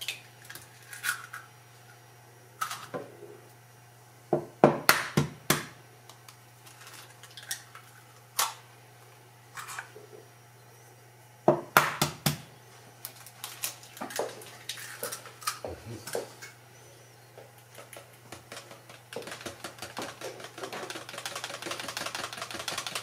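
Eggs being cracked into a jug of batter, heard as clusters of sharp knocks, two of them loud. Near the end a whisk starts beating the eggs into the flour-and-water batter with a fast, steady clatter against the plastic jug.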